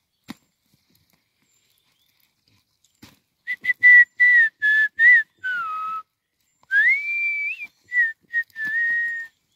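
A person whistling a tune, starting about three and a half seconds in: a run of short notes, a note sliding down, then a rising note held steady and a few more short notes.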